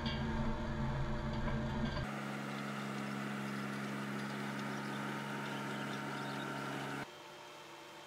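Mini skid steer engine running steadily while its hydraulic power rake turns through the soil: a low engine hum under a noisy rushing hiss. The sound changes abruptly about two seconds in, and near the end it drops to a quieter hum.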